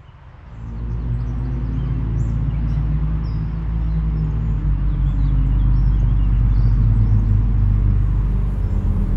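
Low, droning intro music fading in over about the first second and then holding steady, with faint short high chirps above it.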